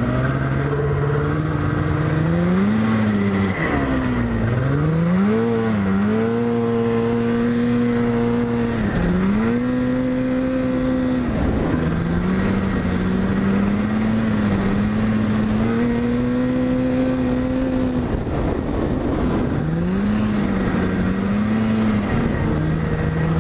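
Yamaha snowmobile engine running under way, its pitch rising and falling several times as the throttle is opened and eased, holding steady for a few seconds between changes.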